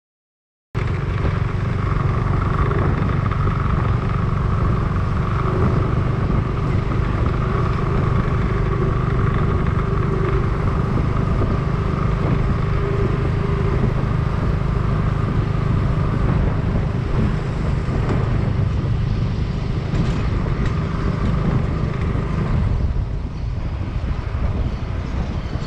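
Steady motor-vehicle engine and road noise: a continuous low rumble with a faint steady hum. It begins after a brief dropout at the very start and eases slightly near the end.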